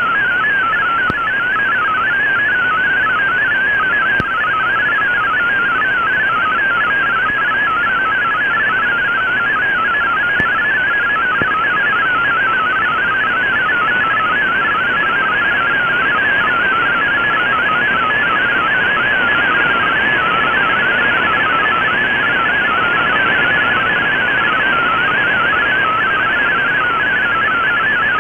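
MFSK32 digital text signal from a shortwave broadcast, received on an Icom IC-R8600 in AM mode: a fast, warbling burble of tones hopping within a narrow pitch range, over steady shortwave band hiss. It is the data stream carrying text that the software is decoding.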